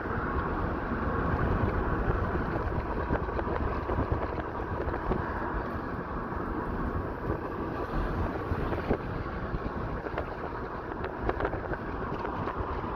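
Steady road and wind noise of a Japanese car driving, heard from inside the cabin by the side window, with a few faint ticks.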